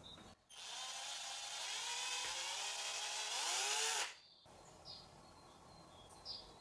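Cordless drill with a small twist bit running at speed, drilling a hole through a thin clear plastic part. It starts abruptly about half a second in, and its whine drops in pitch as it winds down at about four seconds, then it stops.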